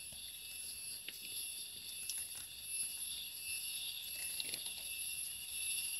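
Steady high-pitched insect chorus, with a few faint scattered clicks and rustles.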